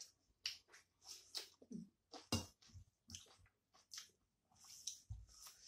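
Two people chewing mouthfuls of rice and curry eaten by hand: quiet, irregular wet smacks and clicks of chewing, several a second with brief pauses.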